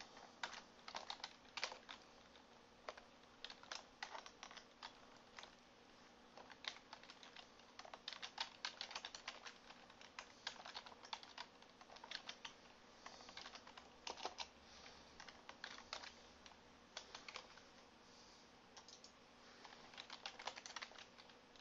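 Faint typing on a computer keyboard: irregular runs of keystrokes with short pauses between them.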